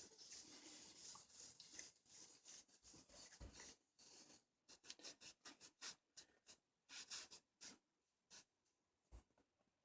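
Faint, scattered rubbing and scratching with light taps from hands working on a wooden base while wood stain is put on.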